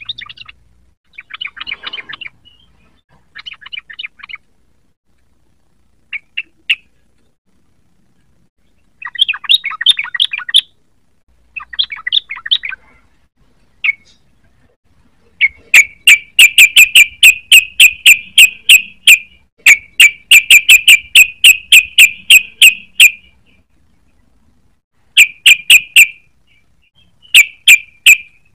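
Yellow-vented bulbul (trucukan) singing. It starts with short, separate chattering phrases with pauses between them. About halfway through it breaks into long runs of rapid, loud repeated notes, several a second: the fast 'ropel' delivery.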